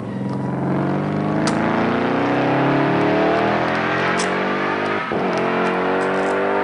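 Car engine accelerating: its pitch climbs steadily, drops sharply at a gear change about five seconds in, then climbs again.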